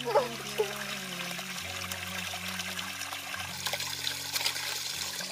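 Water pouring in a steady stream from a bamboo spout and splashing into a shallow pool.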